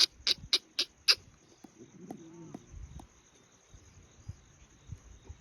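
Five quick, sharp clicks about a quarter second apart, then a faint short pitched sound about two seconds in, over a steady faint high hiss.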